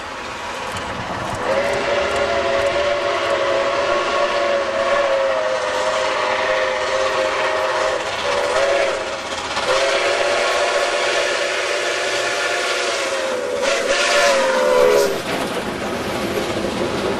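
Nickel Plate Road 765, a 2-8-4 Berkshire steam locomotive, sounding its chime whistle as it approaches: a long blast, a short one and a final long blast, the end of a grade-crossing signal. The last blast is the loudest and drops in pitch as the engine passes, and then the locomotive and its train rumble by.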